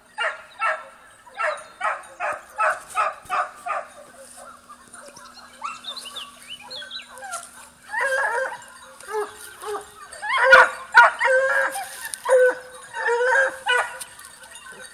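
Porcelaine hounds baying on wild boar in thick cover. An even run of barks comes at about two or three a second for the first few seconds, then several hounds cry at once, overlapping and loudest about ten seconds in.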